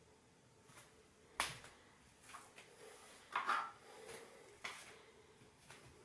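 Plastic plinth cover at the base of a Hotpoint Ariston washing machine being pried off, its retaining clips letting go with a series of sharp plastic clicks and snaps. The loudest snaps come about a second and a half in and again about three and a half seconds in.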